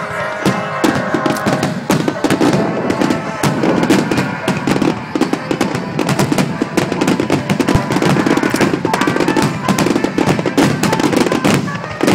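A dense barrage of aerial firework shells bursting and crackling, with many bangs in rapid succession, and music playing underneath.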